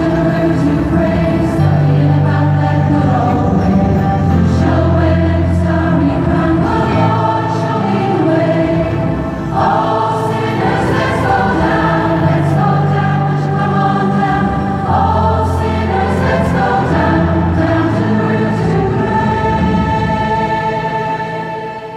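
Gospel choir singing a song with keyboard accompaniment and long held bass notes, amplified through PA speakers. The final chord dies away right at the end.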